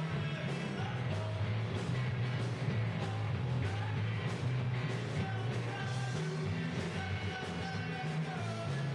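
Alternative/stoner rock band playing live, with guitar, bass line and drums running together at a steady level.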